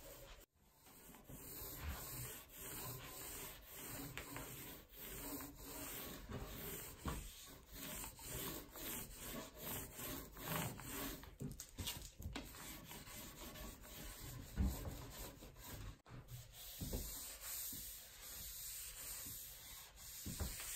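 Small paint roller rolled back and forth over a solid wood board, spreading a coat of finish: a faint rubbing in repeated strokes.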